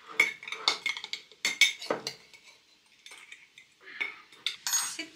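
Quick clinks and taps of a utensil against glass canning jars as chopped vegetables are packed and tamped down into them. The strikes come fast for about two seconds, then thin out to a few fainter taps.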